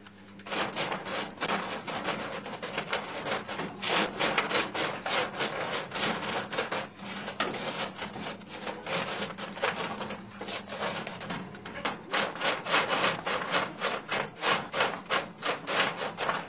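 A hand stirring salt-coated almonds on a baking tray during oven roasting: the nuts rattle and scrape against the tray and each other in quick, continuous strokes. It starts about half a second in and swells and eases in waves, with a faint steady hum underneath.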